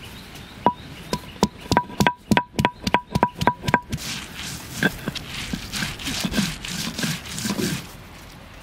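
A stone roller knocks down on garlic cloves on a flat grinding stone: about a dozen sharp knocks, each with a short ring, coming faster to about four a second. About four seconds in they give way to softer crushing and scraping as the garlic is ground to a pulp on the stone.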